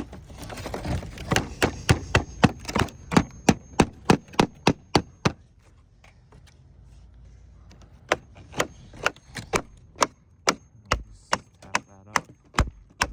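Hammer driving roofing nails into a wood shake: two runs of quick taps, about three a second, with a pause of a few seconds between them.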